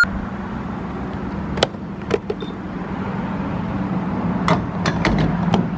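Gas pump nozzle being handled at a car's fuel filler: scattered clicks and knocks, a few early and a quicker run of them about four and a half seconds in, over a steady low hum.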